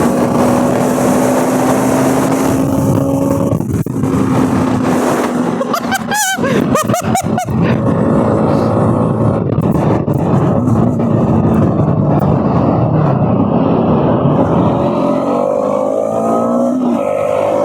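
Bajaj Pulsar NS200's single-cylinder engine running at speed under heavy wind rush, its pitch steady for most of the time, then climbing as it accelerates near the end.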